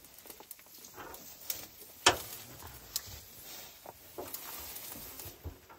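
African bull elephant feeding close by: irregular rustling and tearing of grass and leafy shrubs, with a handful of sharp snaps, the loudest about two seconds in.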